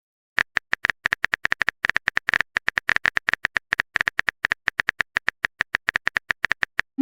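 Phone keyboard typing sound effect: a quick, slightly uneven run of short tapping clicks, about eight or nine a second, starting about half a second in.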